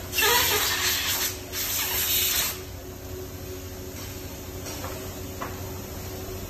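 Pulp-moulding machine hissing loudly, in two blasts of venting air. The second blast cuts off sharply about two and a half seconds in, leaving a steady low machine hum with a few faint clicks.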